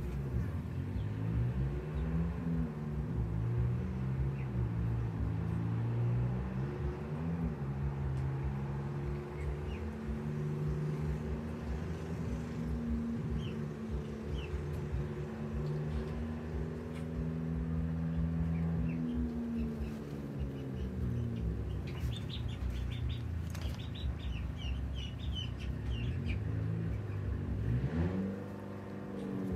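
An engine running with a steady low hum, its pitch sliding up and down near the start and again near the end. Short high bird chirps come and go over it, most of them in a run about two-thirds of the way through.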